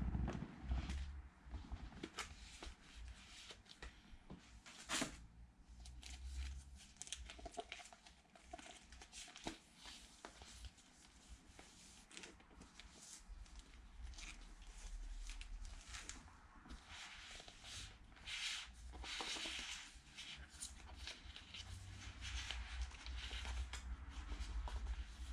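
Vinyl LP records in plastic sleeves being handled and shuffled: on-and-off rustling and crinkling of plastic with small clicks as the sleeves slide against each other.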